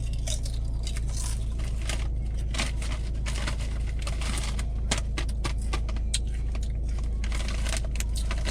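Chip bag crinkling and crackling in irregular bursts of short clicks, over the steady low hum of a car.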